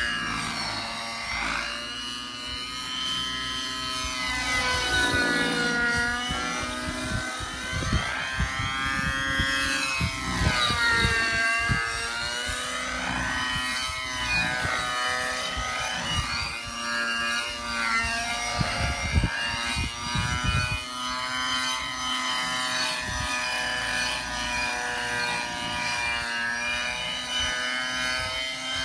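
Synergy N5C RC helicopter's OS 55HZR nitro engine and rotor blades running in flight. The whining buzz swoops up and down in pitch again and again as the helicopter manoeuvres.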